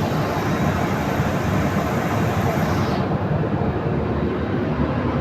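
Steady roar of an airliner cabin in flight: engine and airflow noise heavy in the low end. The upper hiss drops away about three seconds in.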